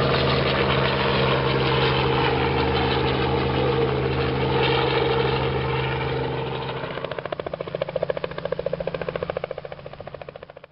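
Robinson R44 helicopter flying past and climbing away: a steady drone of engine and rotor. About two thirds of the way through, the engine tone fades and a rapid, regular beat of the rotor blades takes over, pulsing in loudness until it cuts off suddenly.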